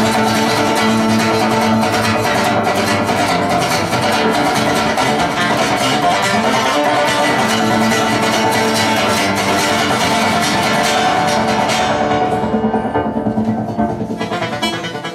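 Solo acoustic guitar played briskly with fast, dense strumming and picking. About twelve seconds in the playing softens and thins out to lighter picked notes.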